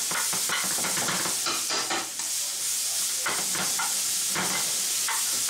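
Sliced green peppers and onions sizzling in a frying pan, turned with metal tongs that scrape and click against the pan again and again.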